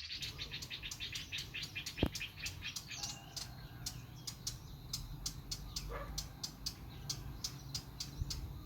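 Bird chirping rapidly in a quick even series, about four to five chirps a second, growing fainter after the first few seconds, with a single sharp click about two seconds in.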